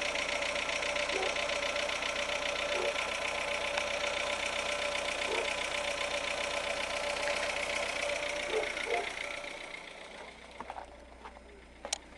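Renault Logan's 1.6 8-valve four-cylinder petrol engine running with a fast, even knock that its owner cannot diagnose. The sound falls away about ten seconds in, followed by a few faint clicks.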